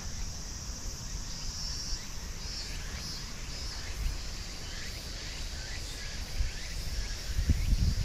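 Outdoor ambience: a steady high chirring of insects, with short falling bird chirps now and then. A low wind rumble on the microphone runs under it and gusts louder near the end.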